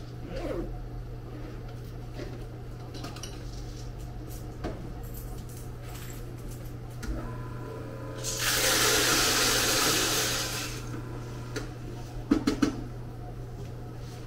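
Electric coffee grinder running for about two and a half seconds, grinding beans. A few quick, sharp taps follow near the end.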